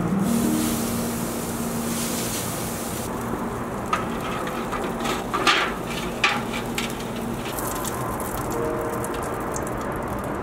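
Disposable aluminium foil pans set down on metal grill grates: a few sharp crinkly clatters in the middle, the loudest two close together, over a steady hiss.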